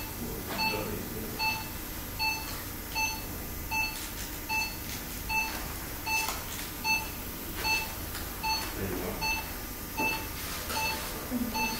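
Operating-theatre patient monitor (pulse oximeter) giving a short electronic beep with each heartbeat, evenly about four beeps every three seconds, a resting pulse of roughly 78 a minute.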